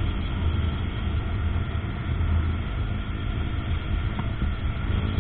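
KTM Duke 125's single-cylinder four-stroke engine running steadily as the motorcycle rides along at town speed.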